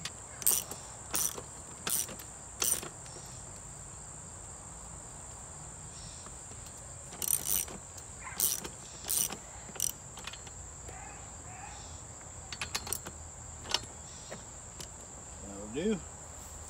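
Crickets chirring steadily in the grass, with sharp clicks and knocks over them as a cart wheel is fitted onto its axle and the axle nut is tightened with a socket wrench: four evenly spaced clicks in the first three seconds, then scattered clicks.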